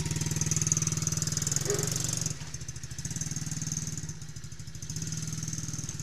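Mowgli Simple 7+ children's quad bike's 125 cc four-stroke petrol engine running steadily at low throttle as the quad drives off. It drops noticeably quieter about two seconds in as the quad pulls away.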